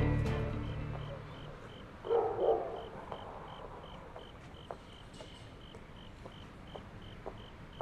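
A dog barks twice about two seconds in, over a cricket chirping steadily about three times a second; soundtrack music dies away in the first second.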